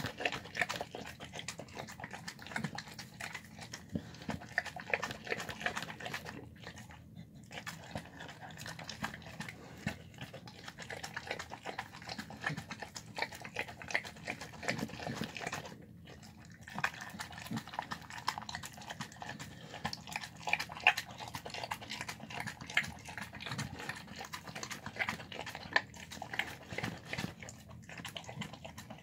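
A dog eating soft home-cooked food from a plastic tub: a steady run of quick, wet chewing and lapping clicks. The run pauses briefly about seven seconds in and again around sixteen seconds.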